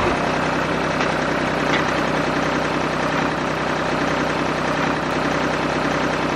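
Small engine of a DIY mini tractor running steadily, with a fast even chatter.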